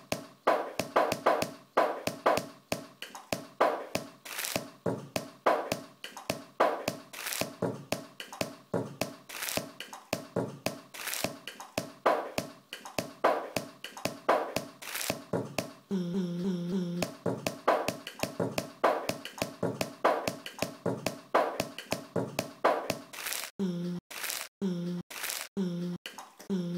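Rapid, uneven percussive taps and clicks, two to three a second, each with a short ringing note. About two-thirds of the way in comes a held buzzing tone for about a second, and near the end a run of short pitched notes about twice a second, each cut off sharply.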